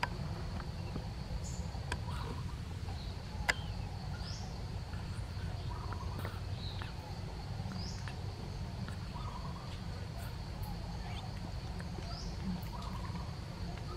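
Outdoor ambience: a steady high insect drone, with faint short chirps every second or two and a few soft clicks over a low rumble.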